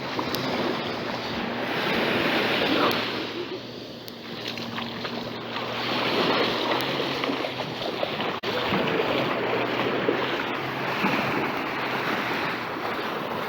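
Ocean surf washing, with wind buffeting the microphone, rising and falling in waves of loudness. A low steady hum runs under it for the first half.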